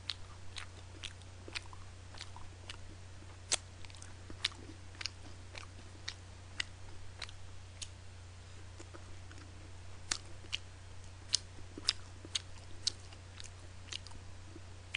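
A person chewing and biting into sauced fried chicken close to a microphone, with irregular sharp mouth clicks and smacks about once or twice a second. A steady low electrical hum runs underneath.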